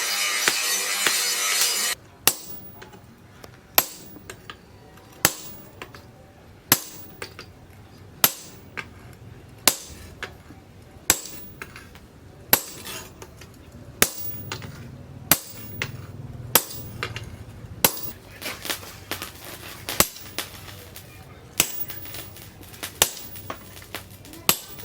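A loud steady cutting noise stops about two seconds in. Then a hammer strikes steel, single ringing blows about one every second and a half, coming closer together near the end: the steel from a tractor's disc being forged.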